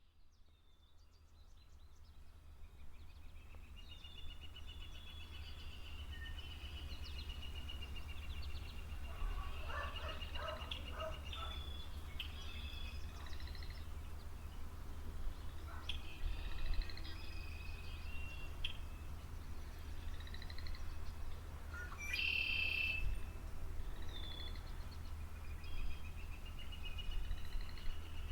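Several songbirds singing, with repeated trills and short chirps, over a steady low rumble. The sound fades in over the first few seconds, and one louder call comes about two-thirds of the way through.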